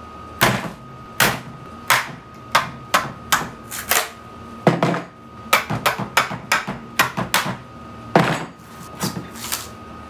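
Hammer blows on a tool wedged into the casing of a small electric water heater, forcing the case open: over twenty sharp strikes in an uneven rhythm, coming faster in the second half. The case is not giving way.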